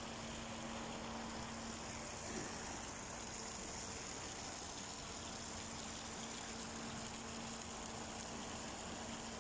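Water pouring steadily from a pool's spout fountain and splashing into the pool, over a steady low hum.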